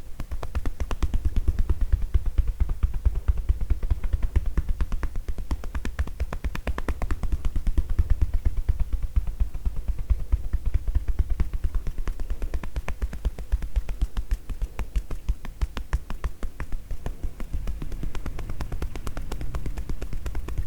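Tapotement massage: hands rapidly and rhythmically tapping a person's upper body with soft hollow pats, a steady fast patter that starts suddenly.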